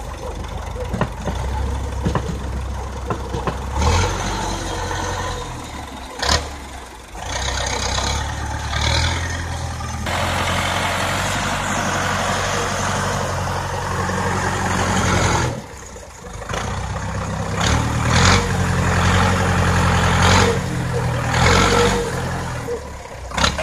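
Zetor 7245 tractor's four-cylinder diesel engine running, its speed rising and falling as the front loader digs into and lifts manure. A stretch of rushing noise lies over it around the middle, with a few short knocks.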